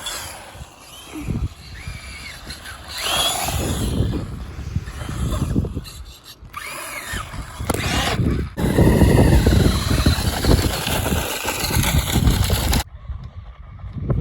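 Tamiya Manta Ray RC buggy's electric motor and gears whining, the pitch rising and falling as the throttle is worked. A louder rough rumbling noise takes over for the last few seconds and cuts off abruptly near the end.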